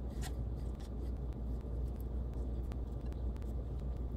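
Faint, irregular soft clicks and taps of thin, oil-coated raw potato slices being set by hand into an air fryer basket, over a steady low background hum.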